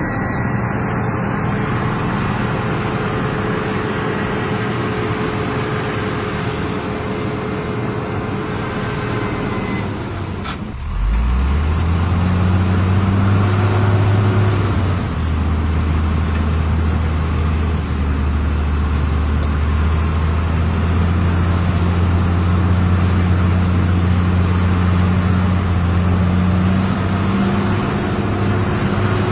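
Heavy diesel dump truck engine running steadily; about ten seconds in the sound dips, then rises in pitch into a louder, deeper steady drone as the tipper body is raised to dump its load of sand.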